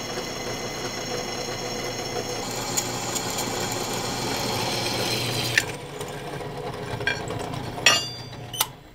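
Bench drill press running, its twist bit cutting into steel: a steady motor hum with a high whine. After a sharp click about five and a half seconds in, the whine drops away, and a few more metallic clicks and a clank follow.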